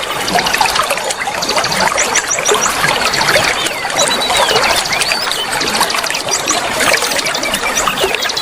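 Running water trickling and splashing steadily, with birds chirping over it in quick high runs of notes and a few short whistles.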